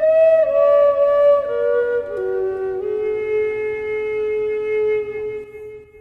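Native American style flute in the key of E, made by Stephen DeRuby, playing an improvised melody: a few notes stepping downward, then one long low note held for about three seconds that fades out near the end.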